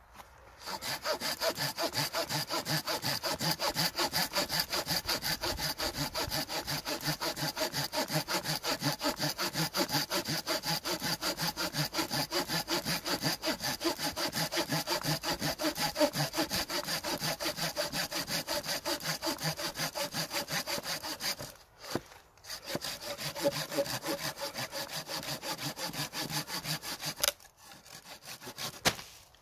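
Hand saw cutting through a barked wooden pole with rapid, steady back-and-forth strokes. It pauses briefly about three quarters of the way through, then resumes, and runs quieter near the end.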